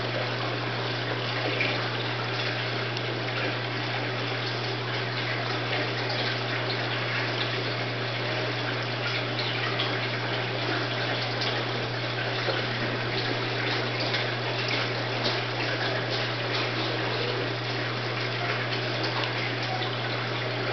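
Steady running water over a constant low hum, with no change in level throughout.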